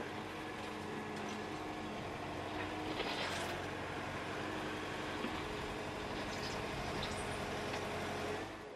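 Volvo EW140C wheeled excavator working steadily, its diesel engine and hydraulics running as the ditch-cleaning bucket grades gravel. There are a few short rasping noises about three seconds in and again around six to seven seconds, and the sound fades out at the very end.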